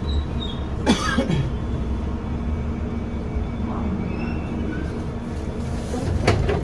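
London Underground Bakerloo line train running on the track with a steady low rumble. A brief falling squeal comes about a second in, and a sharp metallic squeal or knock comes near the end.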